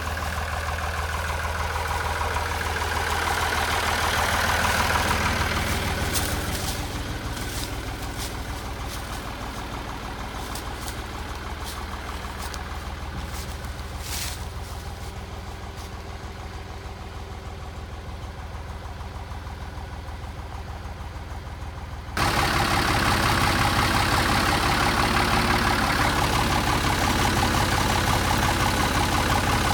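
A vehicle engine running steadily, with a few scattered clicks and knocks over it; about two-thirds of the way through, the sound cuts abruptly to a louder, denser engine sound.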